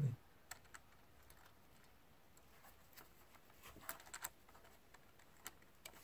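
Faint, scattered small clicks of toenail clippers snipping and working the safety-pin clip on a DJI Phantom 3 Pro's gimbal mount, with a quick cluster of clicks about four seconds in.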